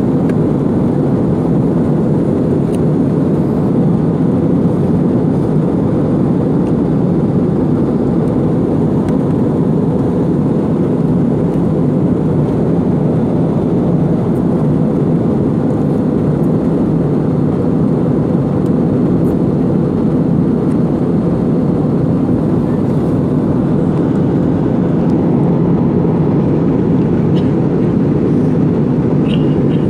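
Steady cabin drone of an Air Arabia Airbus A320-family airliner in flight, heard from a window seat: engine noise and rushing air, low and even throughout.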